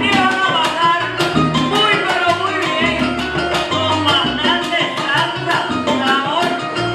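A salsa band playing live: a dense run of hand-drum and timbale strikes over a stepping bass line and piano, with melody lines wavering above.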